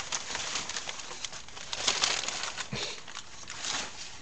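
Packing material rustling and crinkling as a package is unpacked by hand: a continuous crackle with irregular louder crinkles.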